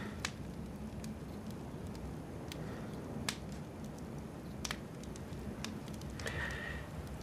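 Quiet room tone: a steady low hum with a few faint, sharp clicks scattered through it.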